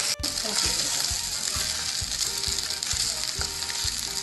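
Chopped onion, green chillies, ginger and garlic sizzling in oil in a steel pan, with a spatula scraping the pan in regular stirring strokes, two or three a second. After a brief drop-out just after the start, shredded cooked chicken is being stirred through the sizzling mix.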